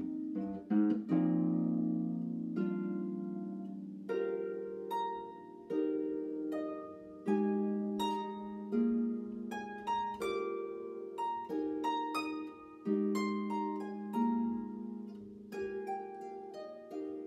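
Solo harp playing a classical piece: plucked chords in the lower strings under single melody notes higher up, each new pluck starting sharply about once a second and ringing on as it fades.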